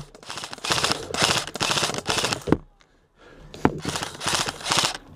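Airsoft electric rifles firing full-auto, as rapid runs of mechanical clicks in several bursts with a short pause about halfway through.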